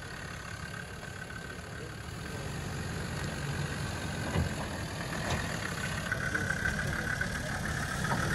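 Land Rover Defender's engine running at low revs as it crawls through deep muddy ruts, growing gradually louder as it comes closer.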